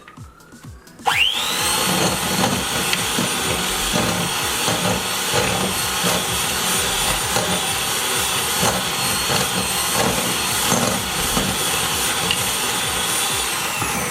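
Electric hand mixer beating a rice-flour cookie mixture: the motor switches on about a second in, its whine rising quickly to speed, runs steadily, then winds down near the end.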